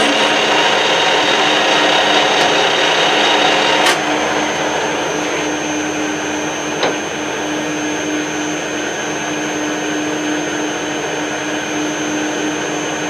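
Metal lathe running steadily with a tool in the toolpost cutting the face of a gear on an arbor. About four seconds in there is a sharp click and the sound drops a little, and the lathe runs on steadily.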